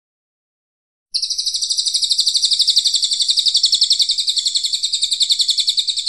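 Cililin coklat songbird singing: starting about a second in, one long, even, rapid trill of high notes, roughly nine a second, held for about five seconds.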